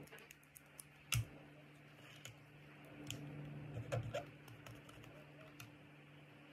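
Scattered clicks and taps from small plastic toy figure parts being handled and fitted together, with one sharper click about a second in and a quick cluster near four seconds. A steady low hum sits underneath.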